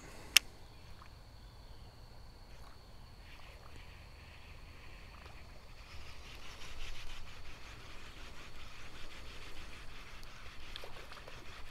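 Baitcasting reel: a single sharp click about half a second in as it is engaged after the cast, then the fast, fine ticking whir of the handle being cranked from about six seconds in.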